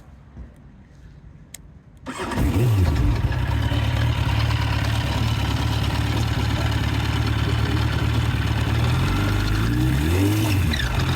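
Yamaha FZ1 Fazer's inline-four engine starting about two seconds in and settling to a steady idle, then revved briefly near the end. It carries the unexplained engine noise that appeared after a new cam chain tensioner was fitted.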